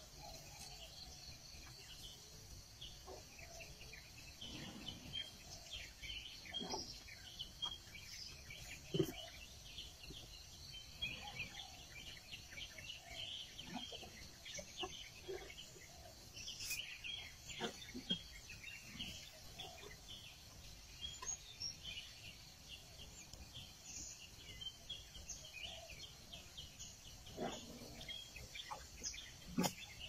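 Morning forest ambience: a steady high insect drone with many short bird chirps and calls throughout, and a few faint knocks here and there.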